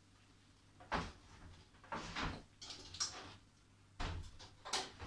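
Kitchen drawer being slid and items handled in it: a run of about five knocks and clunks, roughly one a second.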